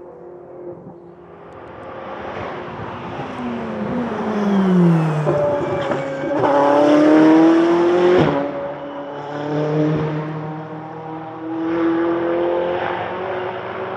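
Ferrari 488 GT Modificata race car's twin-turbo V8 accelerating hard on track, its engine note rising and falling through several gear changes.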